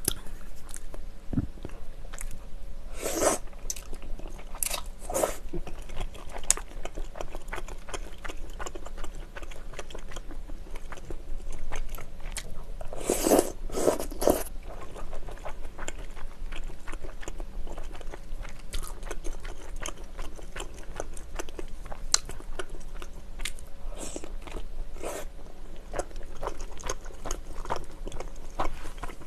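Close-miked eating sounds: wet chewing and smacking of chewy rice cakes and glass noodles in spicy tteokbokki sauce, with many small mouth clicks. About thirteen seconds in comes a louder burst of slurping as noodles are drawn in from the chopsticks.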